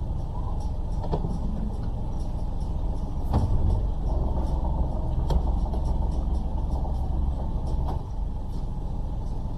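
Sailboat's inboard engine running at low speed, a steady low rumble that grows louder from about three seconds in until about eight seconds in, with a few sharp clicks along the way.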